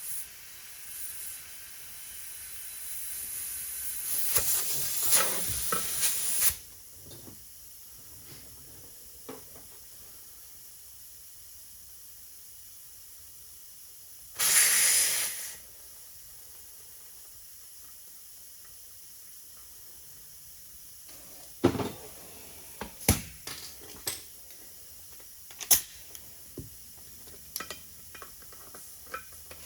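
Compressed air hissing at a tire valve stem from an air chuck that is not seating well. It comes in two spells: a rising hiss lasting a few seconds, then a short loud burst about halfway through. Scattered sharp clicks and knocks follow near the end.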